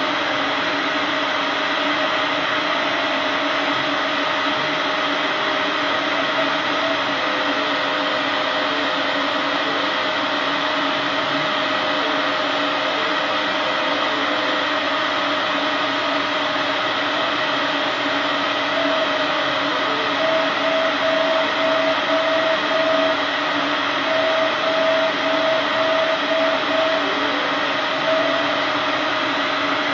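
Epilog Mini 24 CO2 laser cutter running while cutting 3 mm wood: a steady whir of its fans and air assist with a constant hum under it. The head's stepper motors add a whine in short repeated pulses as it traces small cut segments, briefly around a quarter of the way in and more busily about two-thirds of the way in.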